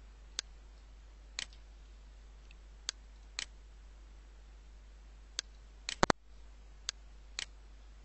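Computer mouse clicking: about ten sharp, separate clicks at irregular intervals, with a quick run of three about three-quarters of the way through. A faint steady low hum runs underneath.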